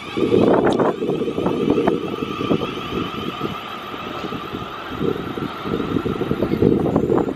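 Class 444 Desiro electric multiple unit pulling away, with a steady whine from its traction motors under gusty wind noise buffeting the microphone.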